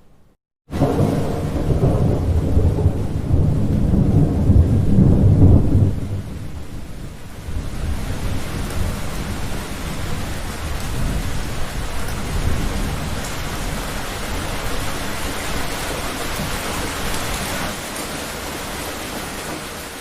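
Thunder rumbling loudly over heavy rain, starting suddenly after a brief silent gap. The rumble dies away after about six seconds, leaving a steady hiss of rain.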